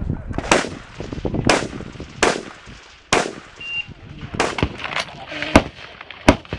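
An AR-15 rifle fired in about eight single shots, unevenly spaced roughly a second apart, each followed by a short echo. This is a competitor engaging targets from the prone position.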